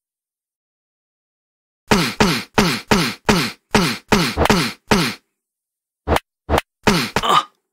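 Cartoon punch sound effects. About two seconds in, a rapid flurry of about ten punches lands, some three a second, each a short hit with a falling pitch. After a brief pause, five more hits come faster near the end.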